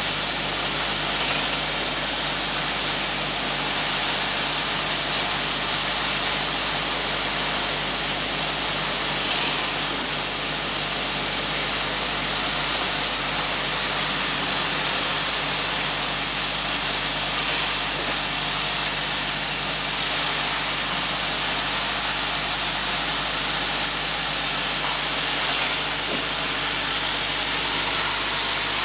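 MK1040 centerless grinder running steadily, an even hiss of grinding over a constant motor hum.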